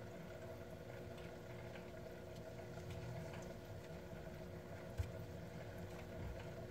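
Quiet steady hum with faint ticking and rustling from a crochet hook working acrylic yarn, and one short sharp click about five seconds in.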